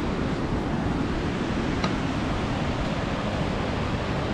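Steady rushing noise with no pitch, even in level throughout.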